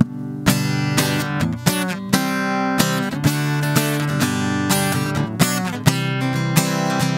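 Acoustic guitar strummed in a steady rhythm, playing the chord intro to a worship song before the vocal comes in.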